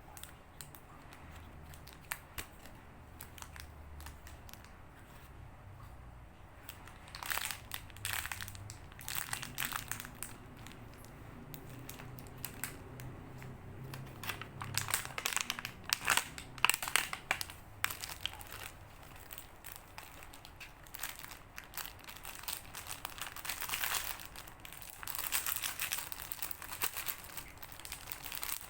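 Squishy toys being handled and squeezed, giving crinkling, crumpling sounds in irregular bursts, loudest around the middle.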